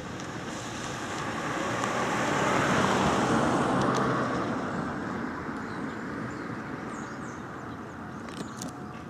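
A car passing by on a wet road: a rush of tyre hiss that swells, peaks about three seconds in, and fades away.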